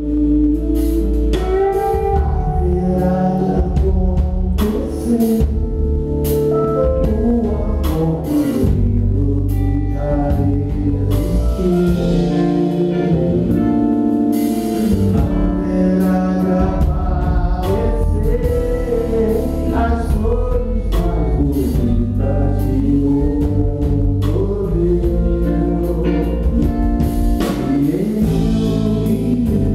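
Live band music: a man singing lead over electric guitars and drums, with a steady beat.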